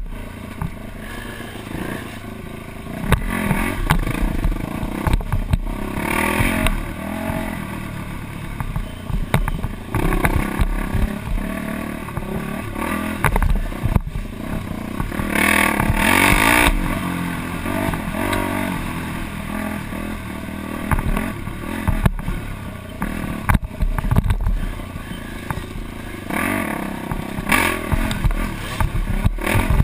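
Off-road dirt bike engine revving up and down as it is ridden along a bumpy trail, heard from the rider's helmet camera. There is rattling and clatter over the rough ground, and twice a louder rushing noise, about six seconds in and again for a second or two in the middle.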